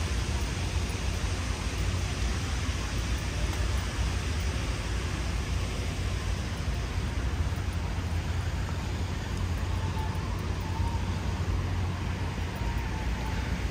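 Steady roadside traffic noise with a constant low rumble and hiss.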